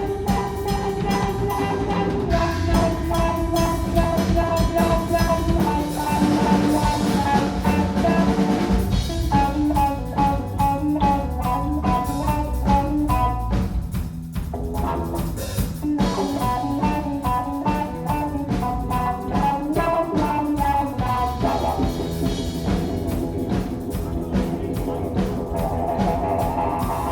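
Live rock trio playing an instrumental passage: guitar melody lines over bass and a drum kit.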